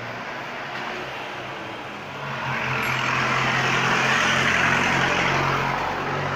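Motor vehicle traffic: a steady engine hum, with the rushing noise of a passing vehicle that swells about two seconds in and eases near the end.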